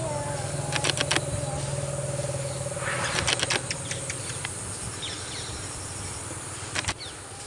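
A vehicle engine running steadily, fading out about four seconds in, with a few sharp clicks and short bird chirps over a steady background of insects.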